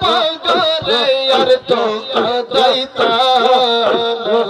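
A man chanting in a melodic, sing-song voice, holding and bending long notes with short breaks between phrases.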